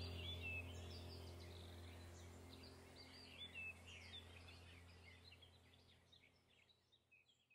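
Birds chirping over a soft, sustained music drone, the whole soundtrack fading out steadily toward silence.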